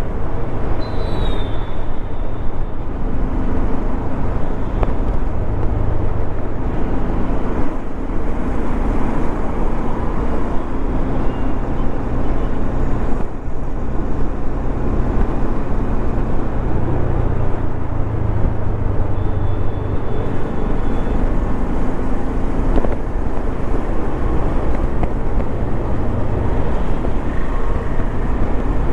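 Bajaj Dominar 400's single-cylinder engine running at cruising speed, its note rising and falling a little with the throttle, under steady road and wind rush.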